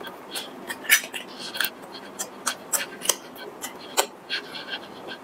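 Close-miked eating of a soft steamed bun: irregular mouth clicks and smacks while chewing.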